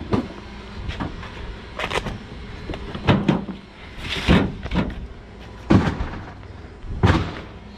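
Fish being handled and dropped into a container: irregular knocks, thumps and scrapes about once a second, with a longer hissing scrape about four seconds in.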